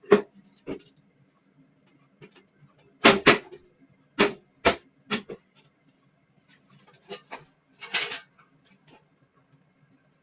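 A run of short, sharp knocks and clicks, about ten in all and loudest about three seconds in, from hands and tools working on the boiler, over a faint steady hum.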